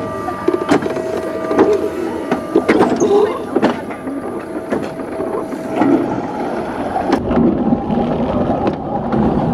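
Summer toboggan sled running on its steel track: a continuous rattle, with sharp clacks about once a second and a steady whine during the first few seconds.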